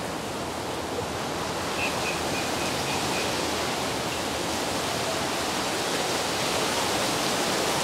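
Steady hiss of bacon-wrapped chicken breasts sizzling on a charcoal grill as barbecue sauce is brushed on.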